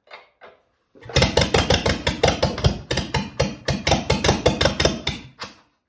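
Ford flathead (sidevalve) four-cylinder engine firing on starting fluid alone, with no fuel system connected. It runs about a second in as a fast string of loud, sharp exhaust pops through the pipes, then dies out suddenly near the end.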